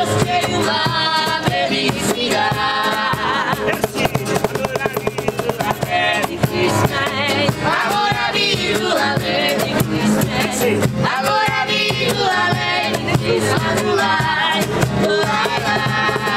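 Street buskers' live acoustic music: two acoustic guitars strummed over a cajón beat, with singing.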